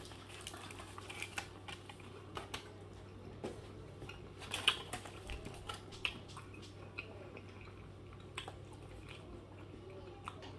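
A person chewing a mouthful of burger, with scattered small clicks and crinkles from the aluminium foil wrap, the loudest about halfway through. A low steady hum runs underneath.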